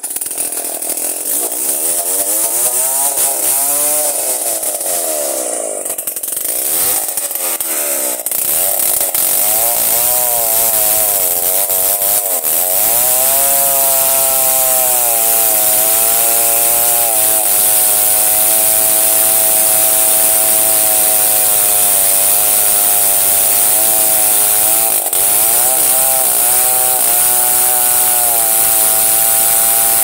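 Chainsaw cutting into a large log, the engine revving up and down over the first several seconds and then held at high revs through the cut.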